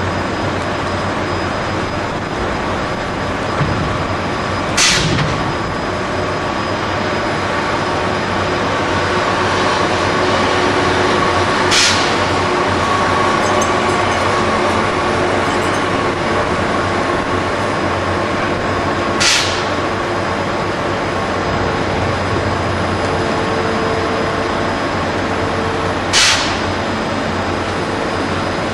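Steady running noise of container-crane machinery, with four short, sharp clicks about seven seconds apart.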